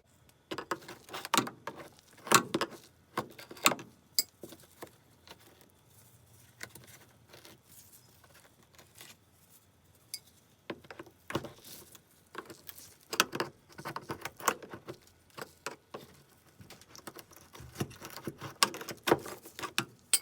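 Irregular clicking, tapping and clattering of a screwdriver and other hand tools being handled, in a few busy clusters with quieter gaps between.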